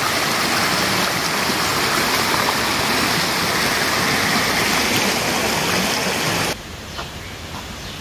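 Stream water rushing over rocks, a loud steady rush that drops off suddenly about six and a half seconds in, leaving a quieter, more distant water sound.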